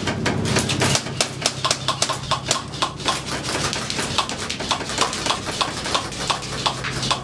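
Boots of several people clattering on a steep staircase as they climb it: a rapid, irregular run of footfalls, several a second.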